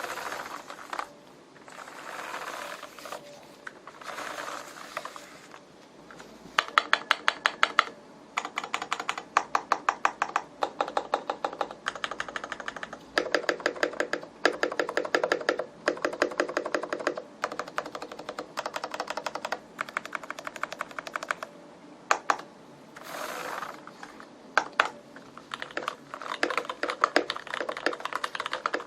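Typing on a Varmilo VA87M tenkeyless mechanical keyboard with linear Cherry MX Red switches: a few soft strokes at first, then fast runs of keystrokes from about six seconds in, with a brief pause near the end.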